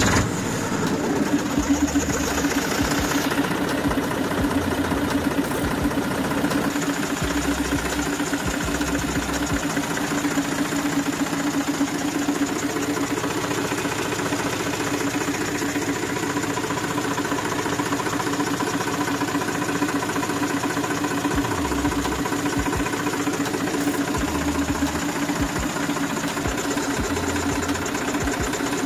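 Torpedo Deutz 45 06 tractor's air-cooled Deutz diesel engine idling steadily just after starting. It drives the hydraulic pump, which is pushing oil out of an opened line into a bucket.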